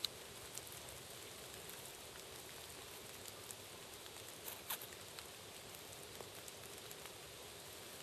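Faint, steady outdoor hiss with a few scattered light ticks, the sharpest right at the start and a small cluster about four and a half seconds in.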